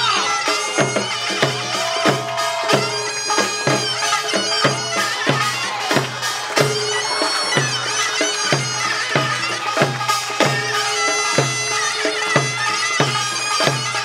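Korean traditional folk music for an ox mask dance: a reedy shawm melody wavering in pitch over barrel drums beating steadily about twice a second.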